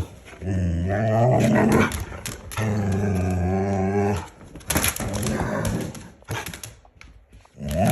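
Husky making long, drawn-out grumbling growl-moans, two of them, with a third starting near the end, and short scuffling noises in between. The vocalising is its protest at being dried with a towel.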